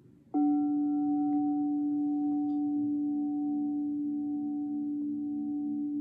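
Singing bowl struck once, then ringing steadily: a strong low hum with several higher overtones, the lowest tone pulsing in a slow beat.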